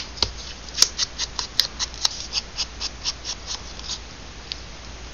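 Quick, repeated scraping strokes along paper edges as they are distressed, about four to five a second, thinning out to a single stroke near the end.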